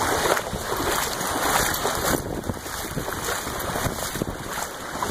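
Floodwater sloshing and splashing in a flooded basement, an uneven rushing noise that swells and eases every second or so.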